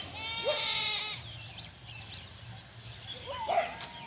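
A goat bleating: one long, level call held for about a second at the start, then a shorter call about three and a half seconds in.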